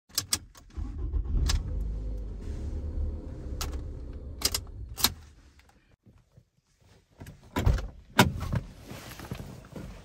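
Button clicks, then a car engine starts and runs low and steady for a few seconds before stopping. Near the end come two heavy clunks from the driver's door being opened.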